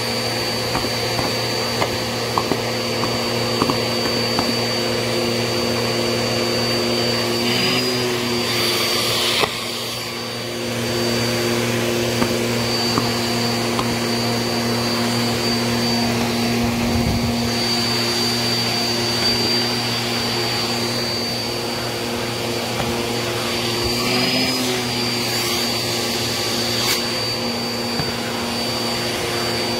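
Vacuum cleaner running with a crevice tool on a shag rug, sucking up paper heart cut-outs: a steady motor whine with scattered small clicks. The pitch wavers briefly about eight seconds in and again near twenty-five seconds, and the sound dips for about a second around ten seconds.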